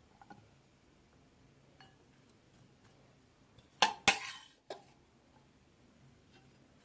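Three sharp clinks of kitchenware, a utensil knocking against a bowl, just under four seconds in, each with a short ring; the middle one is the loudest.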